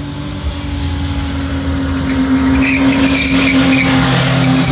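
A pickup truck's engine held at high revs during a burnout, with tyres squealing from about two seconds in.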